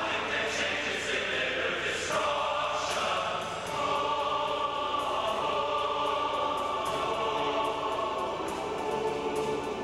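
Large combined men's chorus singing long held chords, moving to a new chord about two seconds in and again near four seconds.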